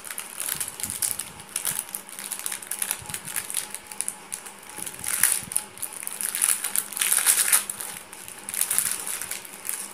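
Close crinkling and rustling with scattered small clicks, coming and going unevenly and loudest about five seconds in and again around seven seconds: hands handling painted bitter gourd seeds and craft materials while gluing the seeds onto a base.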